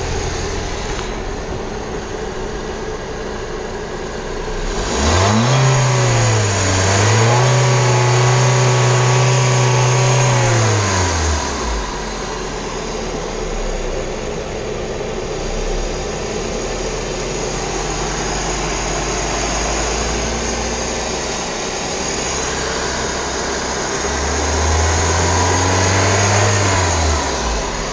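Volkswagen Vento's 1.6-litre four-cylinder petrol engine idling and revved twice: the pitch climbs about five seconds in, holds for several seconds and falls back to idle, then a shorter rev comes near the end.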